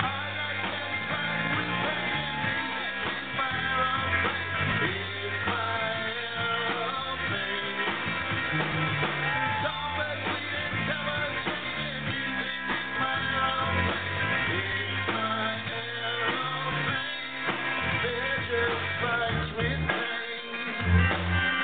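Live rock band playing: electric guitar, bass guitar and drum kit through amplifiers, with the bass notes growing heavier near the end.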